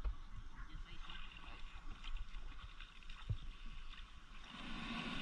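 Small waves washing on a sandy shore, with gusts of wind rumbling on the microphone. The wash grows louder about four and a half seconds in.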